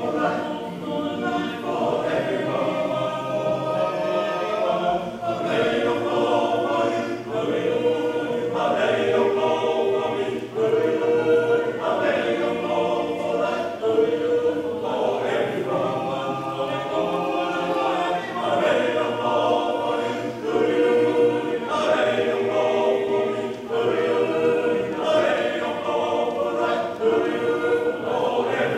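Male-voice choir singing unaccompanied in several-part harmony, with held chords that change every second or so.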